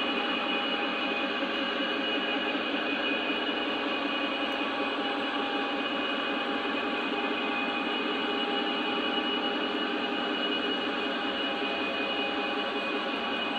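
Model train of loaded coal hopper cars running on its track: a steady rolling clatter of wheels on rail with a constant motor whine.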